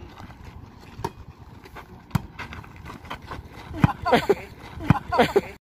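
A volleyball being struck by hand, four sharp slaps about a second apart, with players giving short shouts after the last two hits. The sound cuts off suddenly just before the end.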